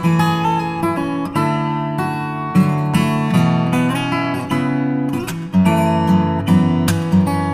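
Background music: an acoustic guitar playing chords, with notes plucked and strummed.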